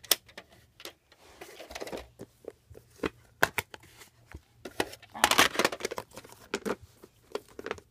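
Handling noise from a plastic VHS cassette and its clamshell case: a run of sharp plastic clicks and knocks, with brief scraping rustles as the cassette is slid and pressed into the case.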